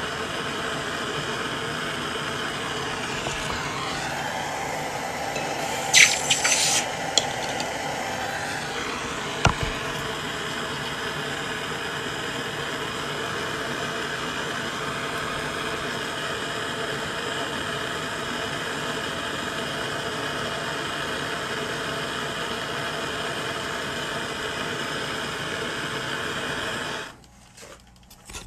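Hand torch burning with a steady rushing hiss as a silver coin ring held in pliers is annealed in its flame. Metal clinks about six seconds in and a single knock near ten seconds; the hiss cuts off suddenly near the end.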